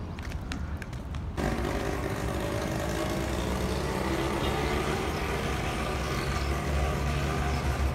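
A child's quick footsteps on cobblestone paving for about the first second and a half, then a sudden change to the steady running noise of a nearby motor vehicle's engine, growing slightly louder toward the end.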